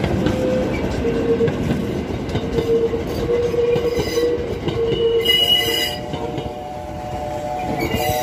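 Wooden passenger coaches of a steam tram rolling past close by, a dense rumble of wheels on the rails with a wavering ringing tone from the wheels. A brief high squeal comes about five seconds in, then the rumble eases as the last coach goes by and a steady pitched tone sounds through the final few seconds.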